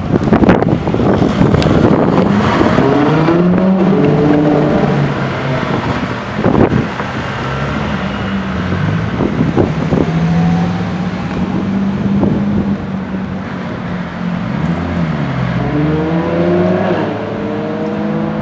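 Ferrari LaFerrari's V12 engine, loud as the car passes close, then pulling away into a tunnel, its pitch climbing and dropping through several gear changes.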